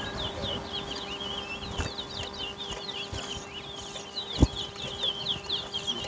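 A caged towa towa (chestnut-bellied seed finch) sings one long unbroken run of rapid, high chirping notes, the song counted in the bird race. A single sharp knock sounds about four and a half seconds in.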